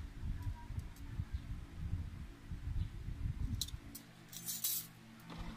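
Handling noise: a low, uneven rumble as the phone moves, with a few light metallic clicks and rustles from the central-lock actuator brackets and rods being handled over a cardboard box, mostly between about three and a half and five seconds in. A faint steady hum sits under it.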